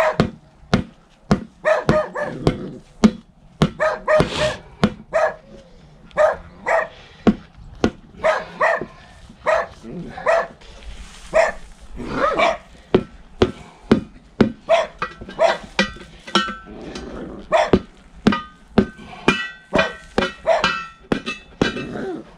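Repeated hammer blows on a small tractor's steel wheel rim and tyre, about two a second and ringing metallically, as the tyre bead is knocked loose from the rim. A dog barks among the blows.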